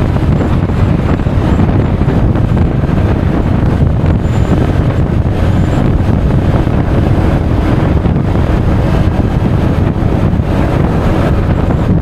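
Loud, steady wind noise rumbling on an action camera's microphone on a moving Honda Forza 350 scooter, with the scooter's engine and road noise mixed in underneath.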